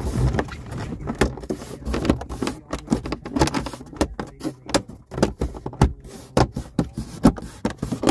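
Plastic center dash speaker grille panel of an Audi A6 C7 being pressed back down into the dashboard by hand: an irregular run of clicks and taps, several a second.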